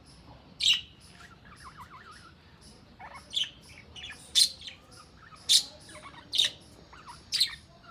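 Pet bird chirping: six loud, sharp, high calls, the first about half a second in and the rest about a second apart from three seconds on, with softer chirps and a short quick warble between them.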